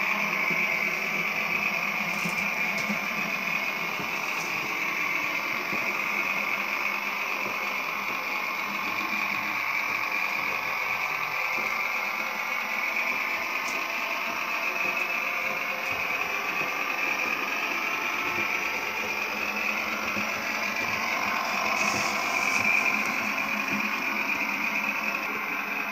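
Märklin HO-scale class 724 (ex-VT 95.9) diesel railbus model running steadily, its mfx digital sound decoder playing railbus engine sound through the model's small speaker, mixed with the whirr of its motor and wheels on the track. A few faint clicks, and a brief louder swell near the end.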